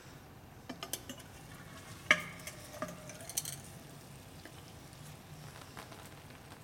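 Small clinks and knocks as the cap of a liquid nitrogen dewar and a chilled end mill on its wire are handled, the loudest a sharp knock about two seconds in that rings briefly. Under them is a faint steady sizzling hiss of liquid nitrogen boiling off.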